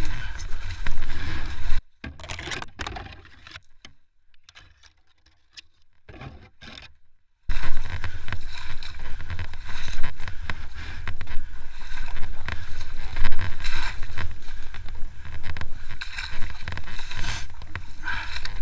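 IRBIS Mukhtar motor tow tug driving through shallow flood water, a dense rumbling and splashing noise. It falls almost silent about two seconds in and comes back suddenly some five seconds later.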